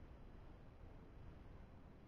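Near silence: a faint, steady low rumble, the muffled ambience heard through a camera submerged in the creek.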